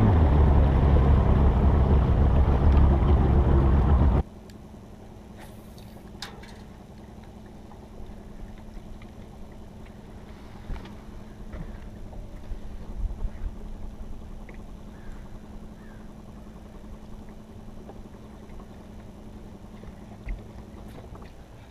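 A loud rushing noise for about four seconds that cuts off suddenly, then a steady low hum with a few faint taps and clicks from the boat and fishing gear.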